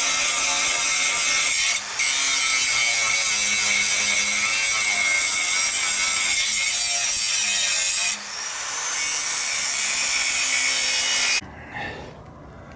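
Handheld angle grinder cutting steel to take a pickup's front bumper off, a loud, steady, harsh grinding. It lets off for an instant about two seconds in, dips around eight seconds and spins back up with a rising whine, then stops about a second before the end.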